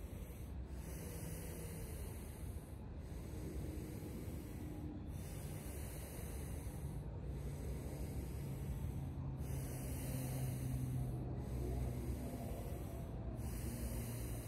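Deep, forceful Wim Hof Method power breathing by a group: rushing breaths in and out, about one full breath every two seconds.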